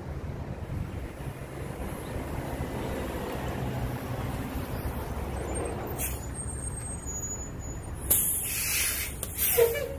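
Articulated 60-foot transit bus pulling up with its engine rumbling low, then air brakes hissing as it stops: a long hiss about eight seconds in and a short, sharper hiss near the end.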